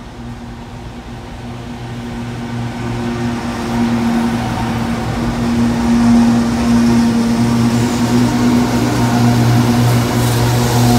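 Diesel-electric locomotives of an Aurizon coal train passing close by, their engines running with a steady low drone. The drone grows louder over the first six seconds as the locomotives draw level, then holds.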